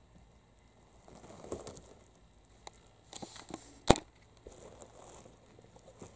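Kittens scuffling and clambering in a woven rope cat bed: soft rustling and claw scratches on the rope, with one sharp knock about four seconds in.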